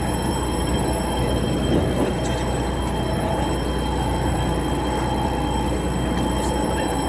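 Steady low rumble of a fishing boat's engine running, with water splashing at the hull as a hooked tuna thrashes at the surface alongside.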